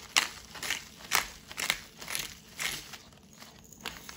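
Disposable plastic grinder being twisted by hand, grinding coarse Himalayan pink salt crystals in short grinding strokes about twice a second, easing off near the end.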